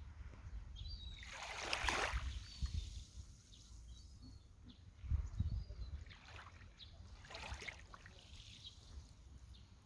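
Small waves of a calm sea lapping and washing at the shore, one larger wash swelling about two seconds in and smaller ones later, with a few faint distant bird calls.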